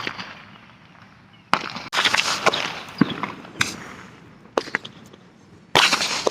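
Fireworks going off: about six sharp bangs and cracks at uneven intervals, the loudest about a second and a half in and near the end.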